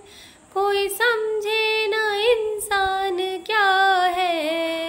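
A woman singing a Hindi Krishna bhajan solo with no instruments heard, holding long gliding notes, coming in after a brief pause at the start.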